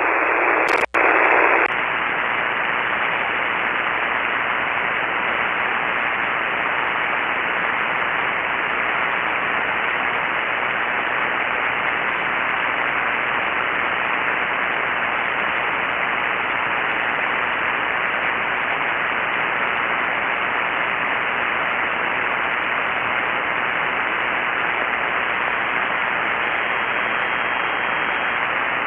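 Steady hiss and static of a shortwave receiver tuned to an empty 40-metre single-sideband channel, band noise heard through the narrow voice passband. It cuts out briefly about a second in, and a faint thin whistle sits under the hiss near the end.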